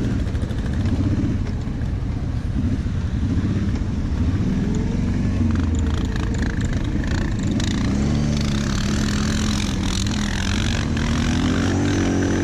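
Quad bike engine running as it pulls along a muddy dirt track, the engine note climbing in the last few seconds as it speeds up. Scattered clicks and knocks from the bumpy ride come through in the middle.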